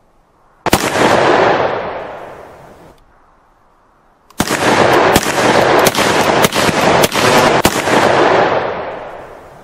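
Handgun shots with long echoing tails: one shot, then after a pause a rapid volley of about ten shots over three seconds, the echo fading out near the end.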